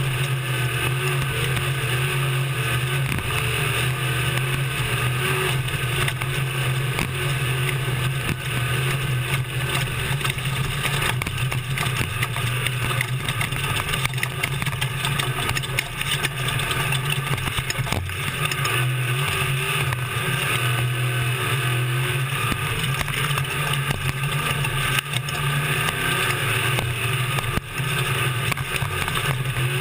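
Desert race truck's engine running hard at a steady pitch, heard from inside the cab, with constant rattling, knocks and rushing noise from driving over rough ground. The engine note drops briefly a couple of times.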